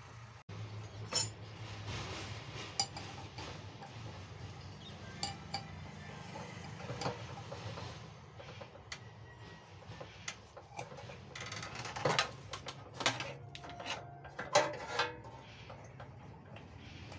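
Scattered metallic clinks and taps of a ring spanner and loose parts against the arbor nut, wheel flange and guard of a 14-inch cut-off saw, loudest about a second in and near the end, over a steady low hum.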